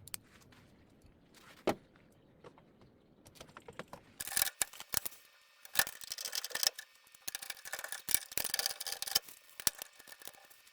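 Bolts being tightened on a vending machine's metal panel: a quiet stretch with a single click, then from about four seconds in a rapid run of irregular metallic clicks and rattles.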